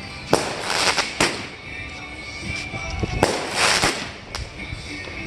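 A consumer fireworks cake firing: about five sharp bangs at uneven intervals, the loudest about three seconds in, with crackling and hissing between the shots.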